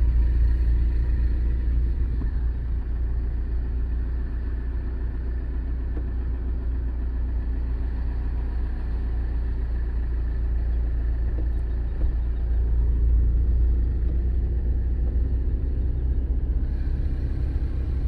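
Steady low rumble of a car's engine and tyres heard from inside the cabin while driving along a road, swelling slightly about two-thirds of the way through.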